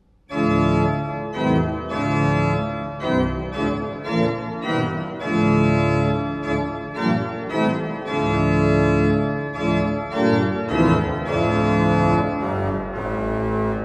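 Vierdag pipe organ playing an improvisation on a hymn in full sustained chords, coming in suddenly just after the start and moving from chord to chord about once a second.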